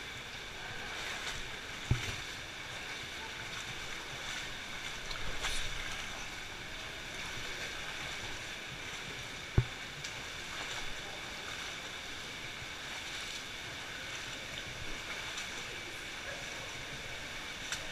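Water sloshing and splashing as people wade through a shallow stream inside a cave, over a steady rush of moving water. Two sharp knocks stand out, one about two seconds in and a louder one about halfway through.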